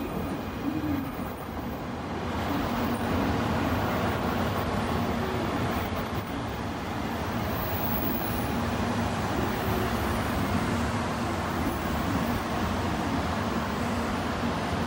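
N700-series Shinkansen train pulling into the station past the platform: a steady rush of wheels and running gear on the rails, with a low hum underneath. It grows louder about two seconds in as the cars draw level.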